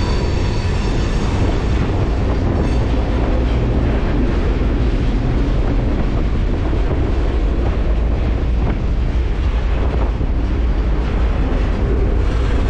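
Freight train rolling: a steady, loud rumble of the cars and wheels on the rails, with some clickety-clack.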